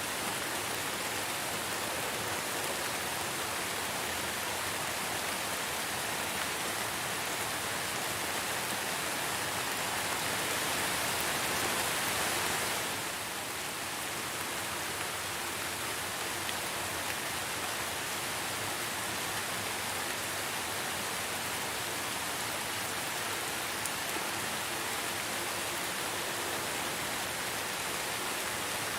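Steady rain falling on a surface, an even dense hiss with fine drop patter, swelling slightly about ten seconds in and easing back a little just before halfway.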